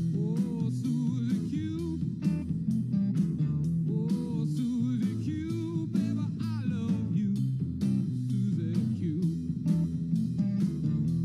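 Rock music with a steady beat, guitar and a singing voice.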